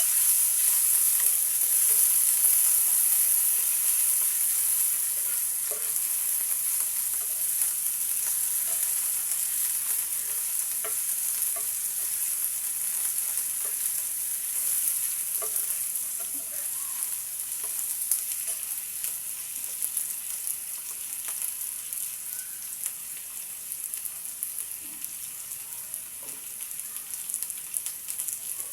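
Fish and potatoes frying in hot oil in a frying pan: a dense, high sizzle with scattered small pops, slowly dying down.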